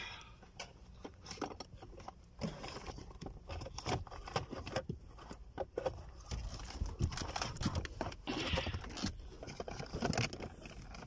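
Hands working a car's smart junction box and plastic dashboard parts into place: irregular clicks, knocks and light scrapes of plastic, with handling noise on the phone.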